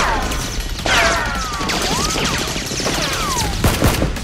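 Dubbed movie gunfire sound effects: sharp shots with several falling, whistling whines, over background music.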